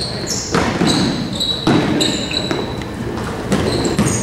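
Basketball being dribbled and bounced on a hardwood gym court, with repeated short, high squeaks of sneakers on the floor.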